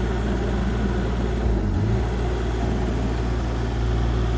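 An engine running steadily at a constant speed, giving a low, even hum.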